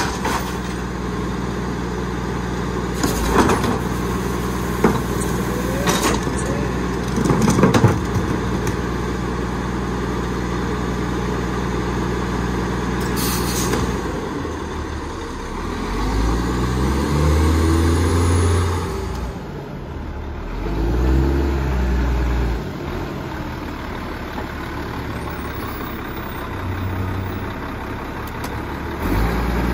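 Labrie Expert garbage truck idling with a few sharp clanks, then a hiss of air brakes releasing about 13 seconds in. The engine then revs up, eases off and revs again as the truck pulls away, before settling back to a steady idle.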